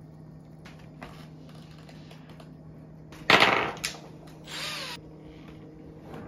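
Cordless drill given two short trigger pulls: a loud burst of the motor about three seconds in, then a shorter spin-up and wind-down a second later. Light handling clicks come before them.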